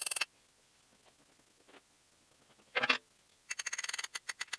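Small metal jointer parts being handled on a steel bench. A quick run of sharp metallic clicks at the start, a single dull clunk about three seconds in, then another rapid run of clicks, about ten a second, near the end.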